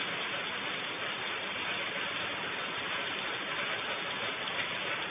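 Steady, even hiss of rain, with no distinct sounds standing out.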